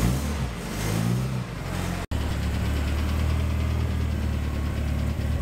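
Ford Escort Mk4 estate's engine running as the car pulls away, its pitch rising and falling with the throttle; after a short break about two seconds in, it settles to a steady idle.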